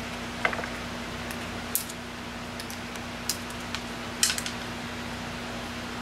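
Hard plastic clicks and knocks from a Ryobi 18-volt battery pack and its plastic holder being handled and pressed into place: about five sharp knocks, the loudest about four seconds in, over a steady low hum.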